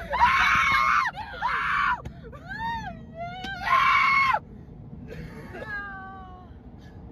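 People screaming inside a car: three long, high shrieks in the first half, with shorter rising and falling yelps between them, then a few quieter wavering cries near the end, over a steady low rumble.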